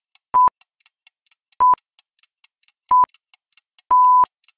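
Countdown-timer sound effect: three short electronic beeps at one steady pitch, about one every 1.3 seconds, then a longer final beep near the end, marking the time running out. Faint rapid ticking runs between the beeps.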